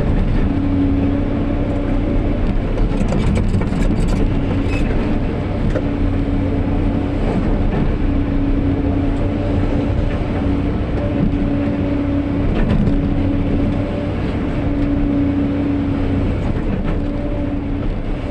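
SANY SY215 hydraulic excavator's diesel engine running under working load, with a steady hum that swells and drops back every second or two as the machine works, and a few light knocks a few seconds in.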